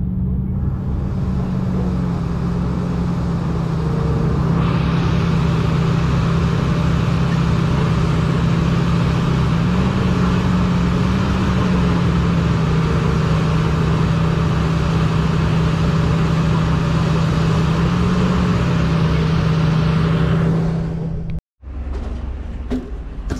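Large diesel engine of heavy mining machinery running steadily with a low drone, a broad hissing noise joining it about four seconds in. Near the end it cuts off abruptly and a quieter rumble follows.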